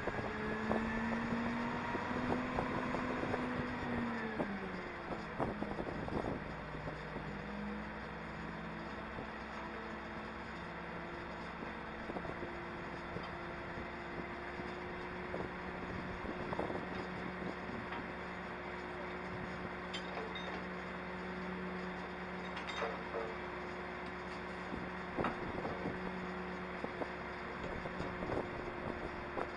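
Grove hydraulic crane's diesel engine running under the cab, its speed sagging about four to five seconds in. It picks back up around seven seconds and then holds steady.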